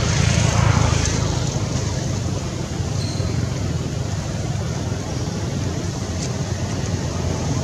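A steady low engine rumble, like a motor vehicle running, with an even hiss over it.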